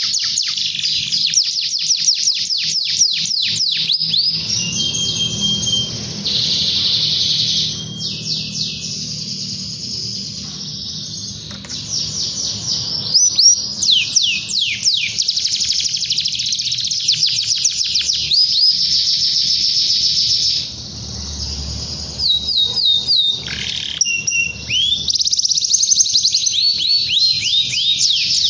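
Domestic canary singing a long song of fast trills and rolls: rapid runs of repeated notes that change phrase every few seconds, with a few short breaks.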